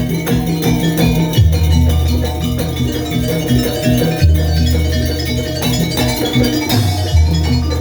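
Live Banyuwangi jaranan ensemble playing an instrumental passage: drums and struck, tuned metal percussion over long, low bass notes that change every couple of seconds.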